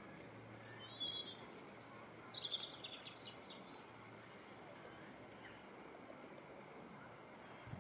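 A small bird chirping: one high call about a second and a half in, then a quick run of short chirps, over a faint outdoor background.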